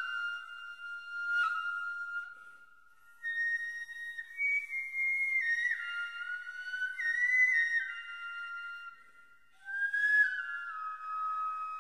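Ryūteki, the Japanese bamboo transverse flute of gagaku, playing a slow solo melody of long held high notes that step and slide between pitches. The notes start with breathy attacks, and the playing breaks briefly twice for breath.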